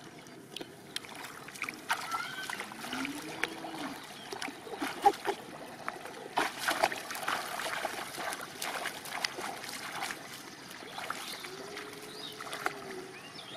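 Shallow paddy water splashing and sloshing as hands grab at fish in it, a run of short irregular splashes, heaviest about six and a half to seven and a half seconds in.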